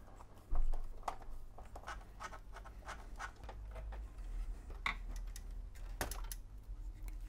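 Screwdriver undoing the screws in the back of a vertical record player's chassis: a run of small scratching clicks as the tip grips and turns the screws, with one thump about half a second in.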